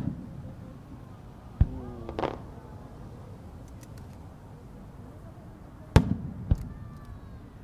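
Aerial firework shells: a dull launch thump about a second and a half in, then a loud bang about six seconds in as a shell bursts overhead, trailing off in echoes, with a second sharp bang half a second later. Faint crowd voices rise after the first thump.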